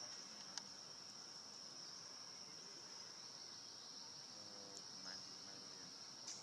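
Steady high-pitched insect trilling, crickets, with a few faint clicks.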